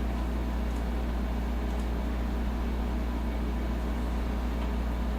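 Steady low hum with a hiss over it, the even drone of a fan or mains hum in the room, with two faint ticks in the first two seconds.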